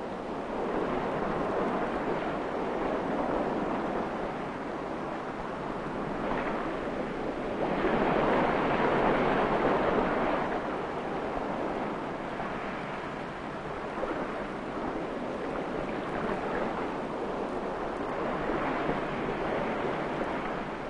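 Open-sea waves surging and wind rushing, in slow swells with the loudest surge about eight seconds in.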